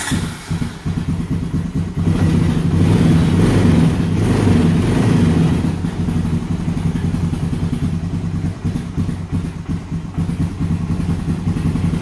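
A 2002 Honda Recon's single-cylinder four-stroke engine running while it warms up on the choke, still cold-natured. It runs louder from about two seconds in and settles back a little around halfway.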